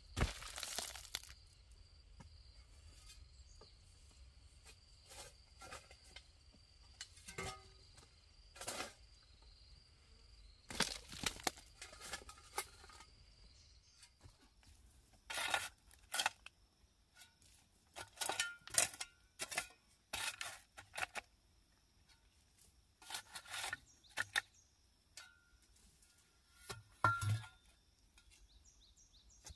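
Irregular short scraping, rustling and clinking noises from hands-on work, coming in scattered bursts, over a faint steady high insect drone.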